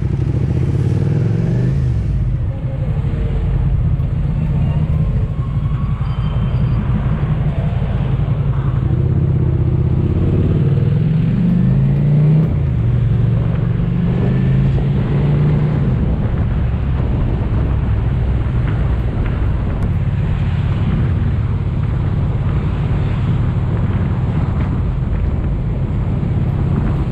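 Motorcycle engine running while riding in city traffic, heard close from a camera mounted on the bike. The engine note rises and falls as it speeds up and changes gear, mostly around the middle, over a steady rush of road and wind noise.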